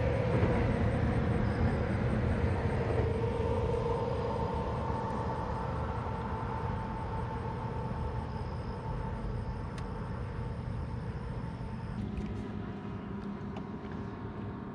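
A motor humming over a steady low rumble, its tone slowly dropping in pitch and fading.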